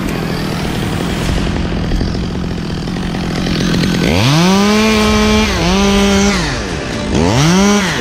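Two-stroke chainsaw running at a low steady speed, then revved to full throttle about halfway through and held for about two seconds with a brief dip, before dropping back. A second, shorter rev comes near the end.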